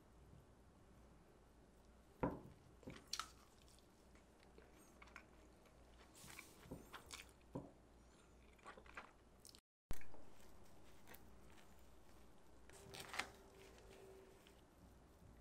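Faint crunching and crackling of baked sourdough panettone being handled, with scattered small clicks. About ten seconds in there is one sharper, louder knock.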